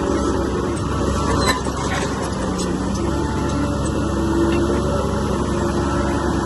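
Bulldozer's heavy diesel engine running steadily, with a few sharp metallic clanks about a second and a half in.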